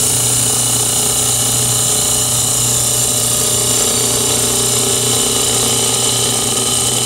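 Wood lathe running with a parting tool cutting into the spinning wooden handle blank: a steady hiss of the cut and flying shavings over the lathe motor's hum. The parting tool is cutting the tenon down to the calipered diameter for the brass ferrule.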